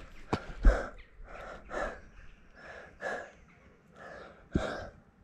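A runner breathing hard in quick, noisy gasps, out of breath after an all-out six-minute track run. There are two sharp knocks in the first second, the second a low thump and the loudest sound, and another knock near the end.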